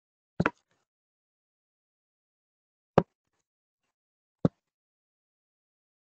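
Four short, sharp clicks or taps: two close together near the start, then single ones about three and four and a half seconds in, with dead silence between them.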